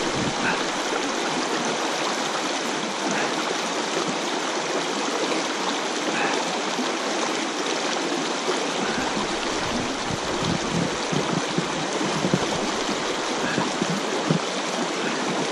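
Fast, shallow water rushing over the stones of a river riffle: a steady, even hiss. Irregular low bumps come in about halfway through.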